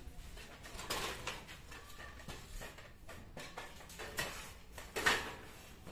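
Scattered metallic knocks and clanks of steel tent-frame tubing and poles being handled while the arched frame is held up and propped, the loudest about a second in and about five seconds in.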